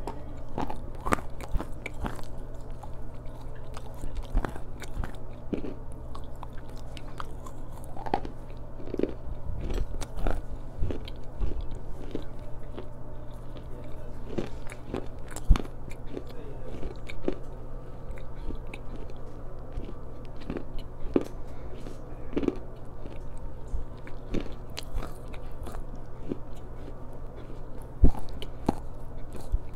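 Black slate cubes being crunched and chewed right against a lavalier microphone: a steady, irregular run of sharp, gritty crunches, over a steady low hum.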